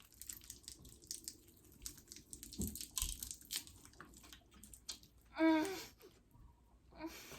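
Toxic Waste sour hard candy being eaten: scattered small clicks and crunching mouth sounds, with a short vocal sound about five and a half seconds in.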